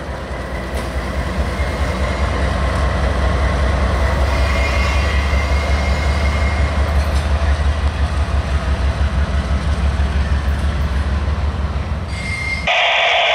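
GE AC44CW diesel locomotive and its freight cars rolling past on a curve during a reverse move, with a steady low engine rumble and a thin wheel squeal. Near the end the rumble fades and a burst of two-way radio static cuts in.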